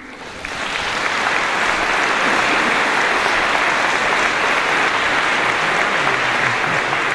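Concert audience applauding: the clapping starts right away, builds over the first second and then holds steady as a dense, even wash.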